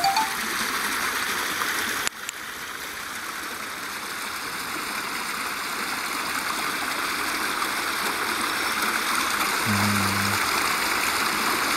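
Steady rush of flowing stream water that slowly grows louder. A sharp click comes about two seconds in, and a short low hum near the end.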